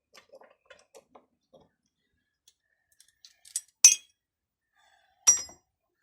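Small metal parts of a hydraulic hose fitting being handled: a run of faint light clicks and taps, then two sharp metallic clinks that ring briefly, about four and five seconds in.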